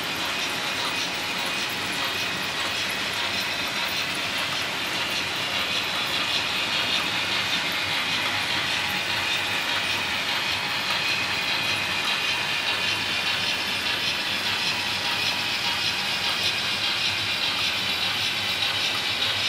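Märklin model freight train running on metal track: a steady, even rattle of small wheels over the rails, a little louder after about six seconds as the wagons pass.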